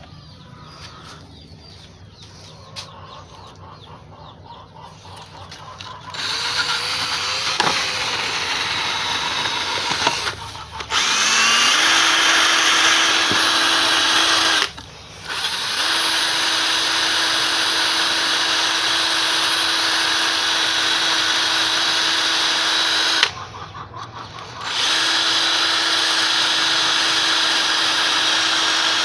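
Power drill spinning a brush attachment against the front brake hub of a 1985 Honda Aero 50, scrubbing it clean. The tool starts about six seconds in and runs in long stretches with a steady whine, stopping briefly a few times.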